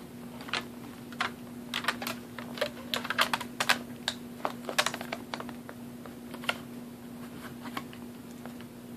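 Light, irregular clicks and taps of fingers handling a red cardboard box and the folded papers tucked under its string. The clicks are thickest in the middle and thin out near the end.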